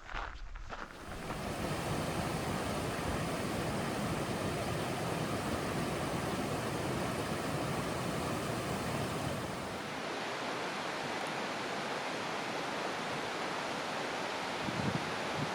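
Steady rushing noise, like running water or wind, with a few footsteps on the trail at the start and near the end. About ten seconds in, the rushing thins and loses its deep part.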